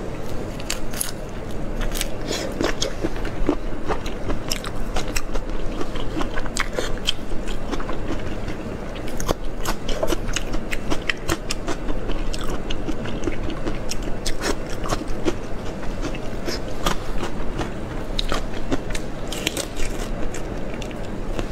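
Close-miked eating of soy-sauce-marinated shrimp: biting, chewing and crunching, with many sharp crackles packed through the whole stretch.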